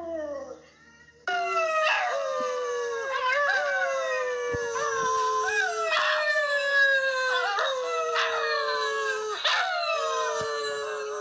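Rottweiler puppy howling: a string of drawn-out howls, each rising briefly and then sliding slowly down in pitch, a new one every second or two.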